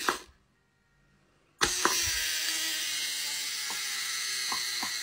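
A small motor whirring steadily, starting suddenly about one and a half seconds in, with a few light clicks over it.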